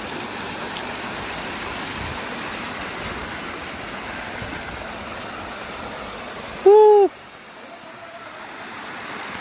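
Steady rushing of a mountain stream or small waterfall. About two-thirds of the way through, a single loud, short hooting call rises and falls in pitch.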